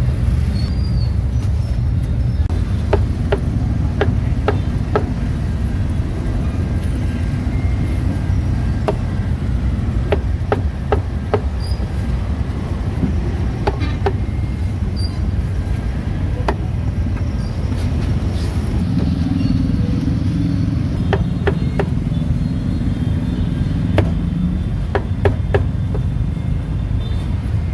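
Steady low rumble of road traffic, with scattered sharp knocks at irregular intervals.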